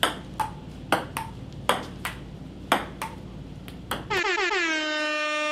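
Table tennis rally: a celluloid ping-pong ball clicking back and forth off paddles and table, about two hits a second. About four seconds in, a loud held tone starts, dropping in pitch at first and then holding one steady note.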